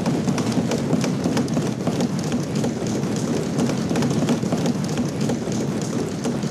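Assembly members applauding: a dense, steady patter of many hands clapping and thumping on wooden desks.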